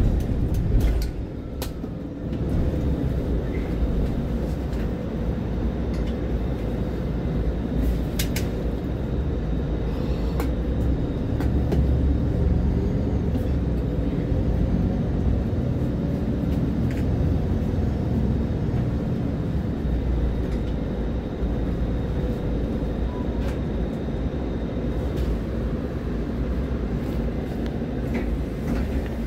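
MAN Lion's City Ü diesel city bus running at low speed with a steady low drone, with a few sharp clicks scattered through.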